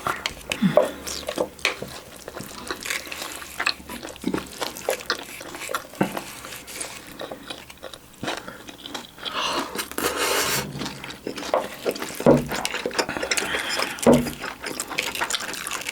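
Spoons clinking and scraping against bowls as rice is stirred and eaten, in irregular short clicks with a longer stretch of scraping near the middle.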